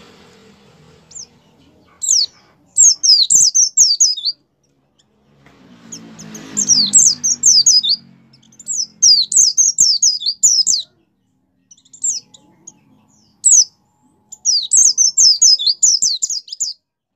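A caged white-eye (pleci) singing in full voice: several bursts of rapid, high twittering, each a second or two long, separated by short pauses.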